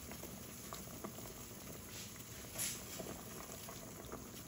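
Fish broth boiling in a stainless steel pot, a steady bubbling with small pops, and a brief louder rush about two and a half seconds in.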